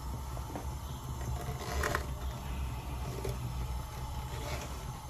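Blended poblano chile, tomato and cream sauce sizzling and bubbling in a pan of hot oil, over a steady low hum, with a few faint clicks.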